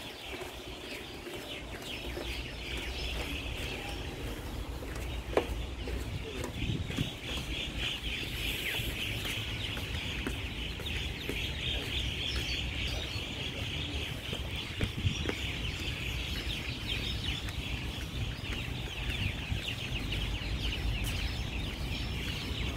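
A dense chorus of many birds in the trees, a steady mass of overlapping high chirps and chattering calls, swelling slightly about two seconds in.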